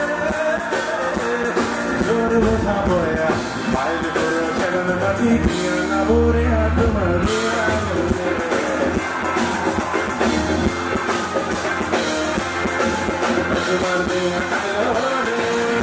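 Live band music: a male vocalist singing into a microphone over electric guitar and drums.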